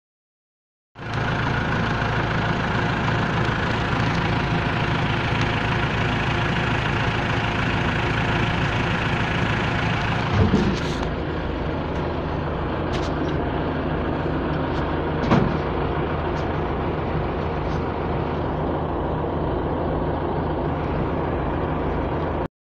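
Fendt 309 Turbomatik tractor's turbocharged diesel engine running steadily, starting about a second in, with a couple of short knocks partway through.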